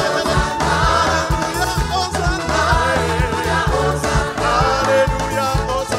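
Live gospel worship song: lead singer and choir singing together over a full band with a steady drum beat.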